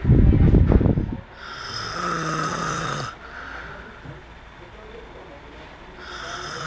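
A person snoring heavily in repeated cycles. A loud, rattling snore fills about the first second, followed by a longer, steadier breath with a hum in it, and the next one begins near the end.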